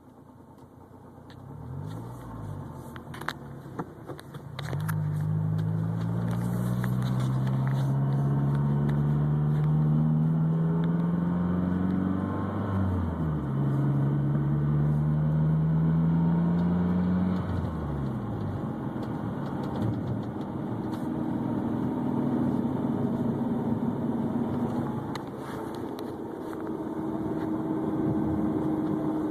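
Mazdaspeed6 turbocharged 2.3-litre four-cylinder pulling away: its pitch rises through one gear, drops at a shift about halfway through, and rises again. It then eases off to a steadier, lighter drone.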